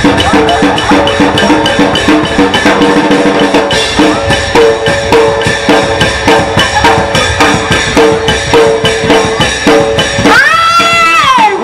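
Live Thai traditional ensemble music: a mallet xylophone plays a repeating melody over drums and sharp wood-block clicks at a quick, steady beat. About ten and a half seconds in, a sliding, wavering melodic line enters over the top.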